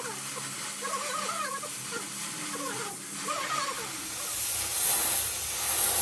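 Gas welding torch flame hissing steadily while it welds a crack in an aluminium alloy wheel rim. The hiss grows louder and brighter about four seconds in, and voices talk quietly during the first half.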